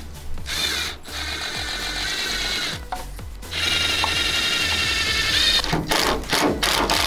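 Ryobi 18 V cordless drill running in two bursts, its motor whining steadily as the bit bores through tape into a car spoiler. Background music with a steady bass plays underneath.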